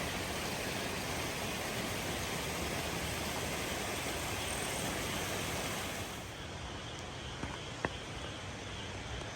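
Steady outdoor ambient noise with no clear single source. It grows a little softer and duller about six seconds in, and a single short click comes near the end.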